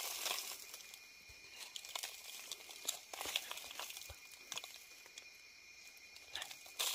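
Dry leaf litter rustling and crackling in scattered, irregular crackles, with a faint steady high-pitched tone throughout.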